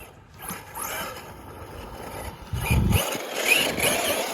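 Traxxas Sledge RC monster truck driving on its first run: motor whine and tire noise, with a low burst a little past halfway. It gets louder toward the end as it speeds up.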